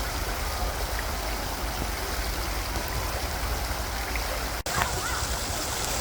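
Mountain stream water rushing steadily over rocks, with a brief dropout about four and a half seconds in.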